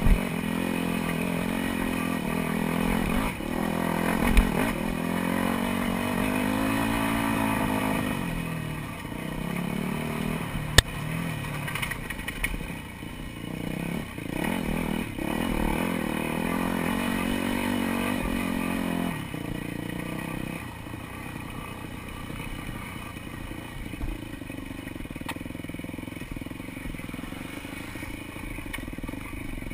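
Dirt bike engine revving up and down as it is ridden along a rough trail, with a few sharp knocks and some clatter from the bike over bumps. About two-thirds of the way through, the engine drops to a lower, quieter note.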